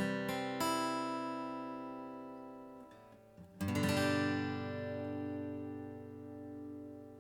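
Jumbo acoustic guitar, a Chibson J-200 replica with its factory strings, strummed: a couple of quick strums, then a chord left to ring and fade. About three and a half seconds in, a second chord is strummed and left to ring out.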